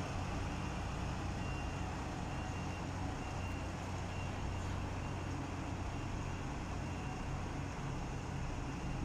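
MAN truck's diesel engine running steadily at low revs while the truck reverses slowly. About a second and a half in, several faint reversing-alarm beeps sound over it.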